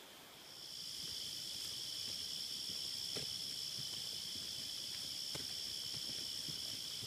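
Insects trilling steadily in two high, unbroken pitches, starting about half a second in, with a few faint footfalls underneath.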